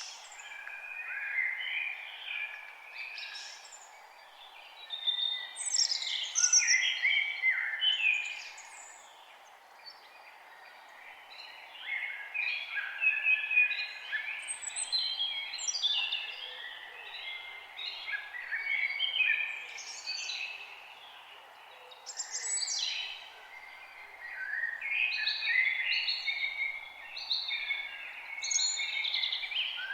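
Several songbirds singing, overlapping phrases of quick whistled notes that come in waves with short lulls, over a faint steady background hiss.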